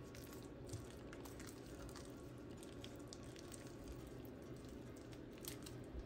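Faint squishing and scraping of a spatula stirring thick, wet batter in a ceramic bowl, with scattered soft clicks over a steady low hum.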